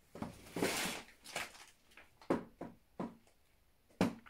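Rummaging through household items: a series of short, irregular knocks and clicks of things being moved and set down, with a short rustle about half a second in.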